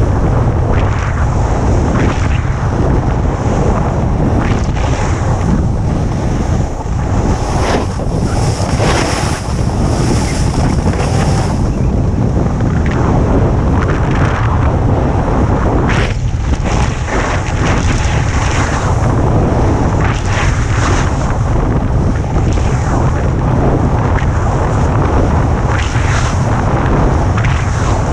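Heavy wind buffeting the camera's microphone at riding speed, a steady low rumble, with a snowboard's edge scraping over the snow in repeated hissing swells as it carves turns.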